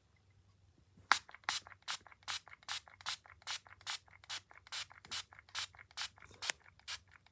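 Pump-spray bottle of lavender pillow spray spritzed over and over, short hissing squirts about two to three a second, starting about a second in. No smoke alarm sounds.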